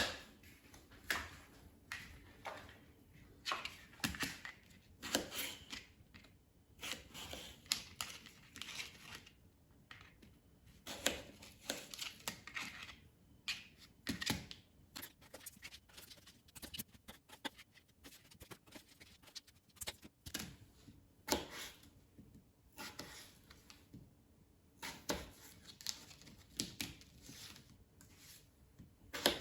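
Knife slicing raw, unpeeled potatoes into wedges. The cuts come at an irregular pace as short crunching strokes, with a quicker run of small clicks midway.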